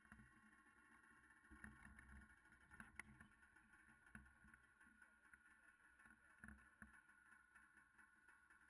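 Near silence: faint low rumbles and soft bumps, with one sharp click about three seconds in.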